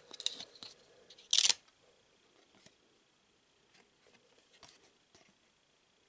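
Trading cards being handled, with one card slid across another: a short, loud swish about a second and a half in, then faint ticks and rustles.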